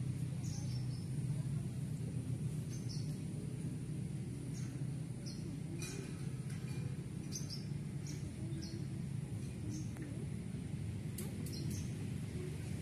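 Outdoor ambience: a steady low rumble of background noise, with short high bird chirps coming every second or so.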